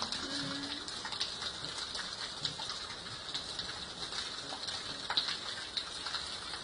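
Steady rain, with rainwater falling in thin streams from overhead and splashing onto wet ground, giving an even hiss full of small drip ticks.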